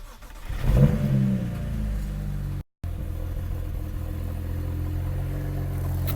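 BMW N54 twin-turbo inline-six engine cranking and catching, flaring up loudly about a second in, then settling into a steady idle. This is its first start on fresh oil after an oil change.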